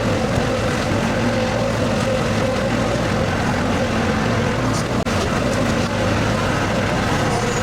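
Skid steer engine running steadily at working speed while the machine works.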